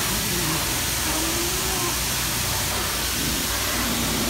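High-velocity pet dryer (water blower) blowing a steady, loud rush of air over a Shiba Inu's wet coat.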